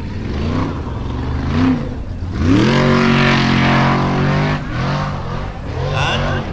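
Formula Offroad buggy's engine revving hard under load as it climbs a steep dirt bank. Its pitch climbs steeply a little over two seconds in and holds at high revs for about two seconds, then drops off, with shorter throttle blips near the end.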